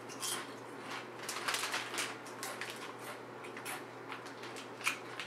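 Potato chips crunching as they are chewed with the mouth closed: irregular crisp crackles, thickest about a second or two in, then sparser.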